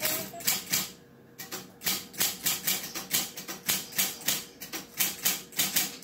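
Typewriter keys striking the paper in quick, irregular clacks, about three or four a second, with a short pause about a second in.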